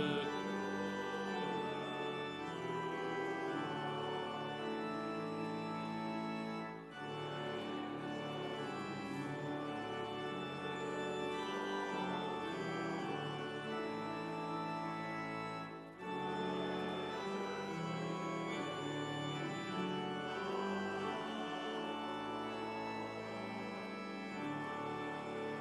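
Church organ playing slow, held chords, with two short breaks between phrases, about seven and sixteen seconds in.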